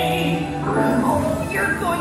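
Music with singing voices over an instrumental accompaniment.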